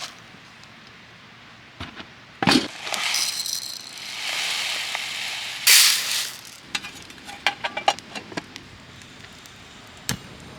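Camp cooking sounds: a couple of knocks, then a few seconds of hissing rush with a loud burst near the end, then a quick run of light metallic clinks.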